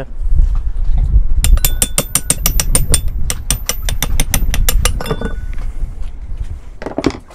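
Lewmar sailboat winch ratcheting: a quick, even run of sharp metallic pawl clicks, about six a second with a faint ring, starting about a second and a half in and stopping near five seconds. A low rumble of handling runs underneath.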